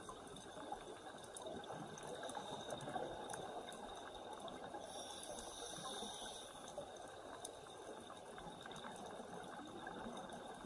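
Underwater ambience picked up by an action camera: a steady low watery hiss with scattered faint clicks.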